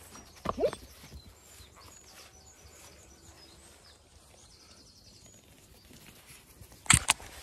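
Puppies playing on a lawn: a short puppy yelp about half a second in, then light patter and rustling of movement through grass. Two sharp knocks near the end are the loudest sounds.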